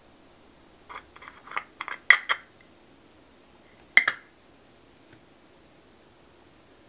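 A quick run of small hard clicks and clinks from nail-art tools and a plastic wheel of tiny studs being handled and set down, then one sharp click about four seconds in and a couple of faint ticks after it.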